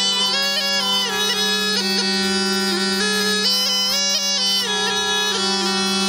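Snake charmer's pungi (been), a gourd reed pipe, playing a winding melody with quick ornamental turns over a steady unbroken drone.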